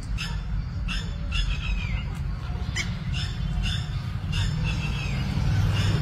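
Alexandrine parakeets calling: short, repeated calls at irregular intervals, over a steady low rumble.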